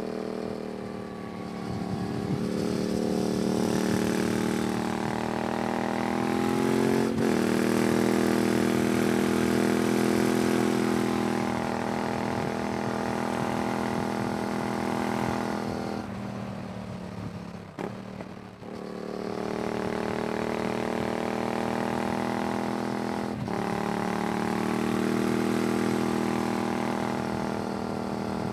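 Yamaha MT-07 parallel-twin engine with an aftermarket IXIL exhaust, ridden in long pulls under throttle, its pitch climbing and then dropping sharply at gear changes about 7 seconds in and again near the end, with the throttle eased off in between.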